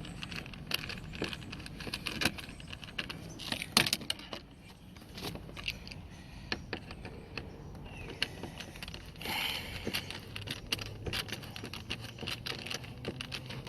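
Irregular small metallic clicks and scrapes of a screwdriver turning a door-panel screw that spins in place, held from behind with needle-nose pliers, with a short rasping scrape about nine seconds in.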